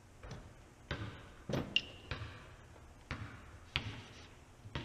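Metal motorcycle fork parts and hand tools knocking and clinking against each other and the workbench: about seven separate knocks, one with a brief metallic ring near the middle.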